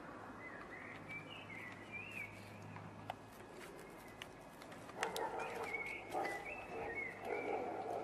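A songbird singing in short warbling phrases, in two spells, over faint outdoor background with scattered light clicks. Louder background noise joins about five seconds in.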